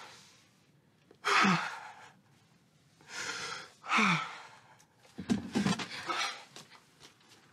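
A woman crying: a few heavy, shaky sobbing breaths and gasps, each sliding down in pitch, with a quicker cluster of breaths about five seconds in.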